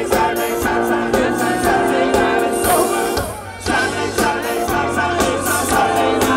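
Live band playing a song with sung vocals over a steady drum beat. The music thins out briefly a little past halfway, then comes back in full.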